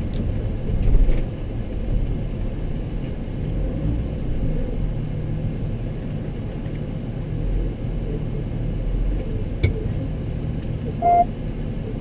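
Toyota Sienna minivan driving slowly, heard from inside the cabin: a steady low rumble of engine and road noise, with a short electronic beep near the end.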